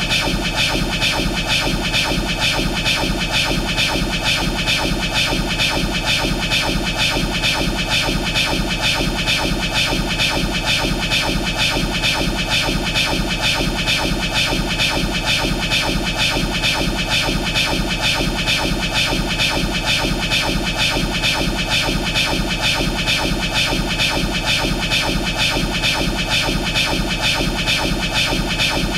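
Looped anime sound effect of Law's 'Room' ability: a steady, synthetic buzzing drone with a fast, even flutter that never changes.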